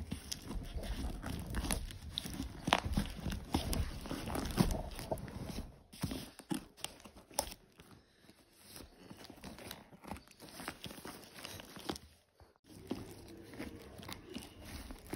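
A cardboard parcel wrapped in packing tape being opened: a paper label tearing, scissors snipping and cutting through the tape and cardboard, and the plastic-taped wrapping crinkling. Irregular snips and rustles, busier in the first half and quieter in the middle.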